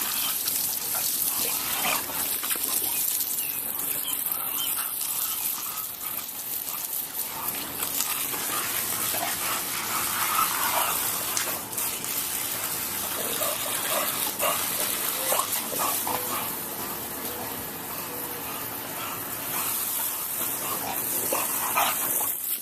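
Steady hiss of spraying water, with a dog barking and yipping now and then over it.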